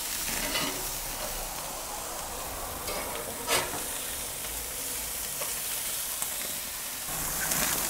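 Burger patties sizzling steadily on a hot gas grill, with a metal spatula clacking against the grate a few times, most sharply about three and a half seconds in.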